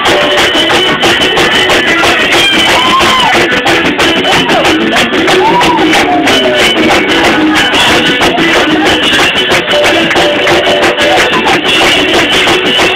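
Loud church praise music with a steady beat.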